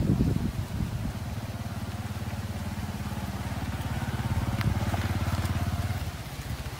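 Motorcycle engine running steadily under way, a low pulsing drone whose note fades about six seconds in.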